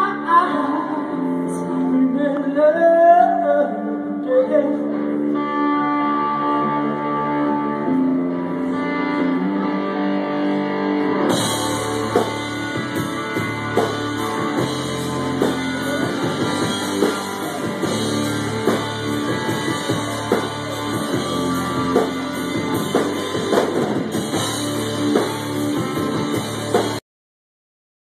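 Live blues-rock band playing: electric guitar with bending notes over bass guitar, then about eleven seconds in the drums and cymbals come in hard and the full band drives on together. The sound cuts off abruptly near the end.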